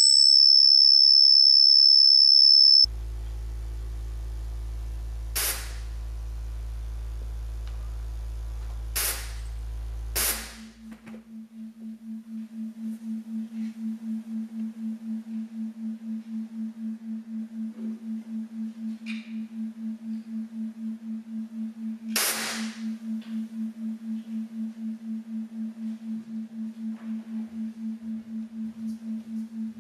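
Electronic sound score built from pure tones: a loud, high steady tone cuts off about three seconds in, giving way to a deep low drone punctuated by short, sharp hissing hits. From about ten seconds in, a low hum pulses evenly about two to three times a second, with one more sharp hit about two-thirds of the way through.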